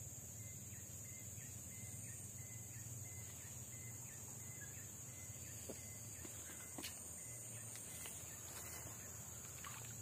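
Faint forest ambience: a steady high-pitched insect drone, with a short chirping note repeated about three times a second that stops about eight seconds in. A few faint clicks and a brief rustle come in the second half.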